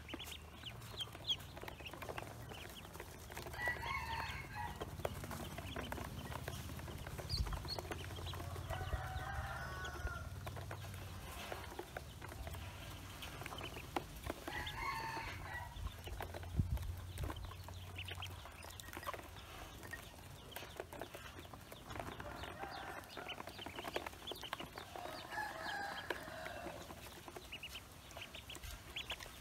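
Ducklings shuffling in a plastic basin, with many small clicks and taps of feet and bills on the plastic. A spell of poultry calling comes about every five or six seconds.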